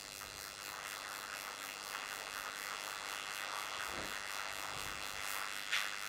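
Steady hiss of background noise, with a faint low thump about four seconds in and a short sharp click near the end.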